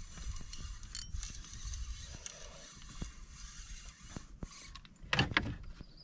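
Fishing reel being cranked with a fine, rapid ratcheting tick as a hooked pike is reeled in. A brief louder noise comes about five seconds in.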